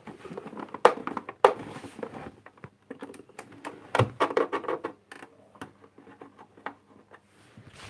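Handling noise: scattered clicks and knocks of small objects being picked up and moved about, with two sharper knocks about one and one and a half seconds in and another near the middle.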